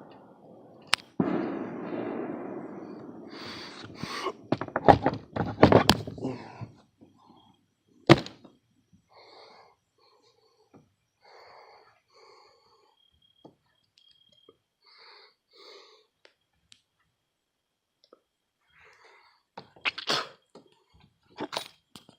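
Rustling and a run of hard clunks and knocks, then a sharp knock a couple of seconds later and two more knocks near the end, from a hinged compartment lid on a carpeted boat deck being handled.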